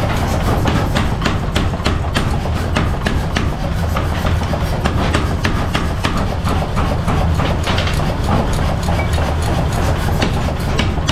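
A machine running with a steady low hum, with many irregular clicks and knocks over it.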